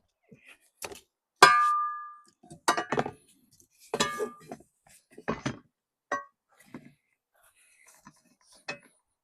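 Metal knocking and clanking as things are handled: one loud ringing clang about one and a half seconds in, then a string of duller knocks and rattles at uneven intervals.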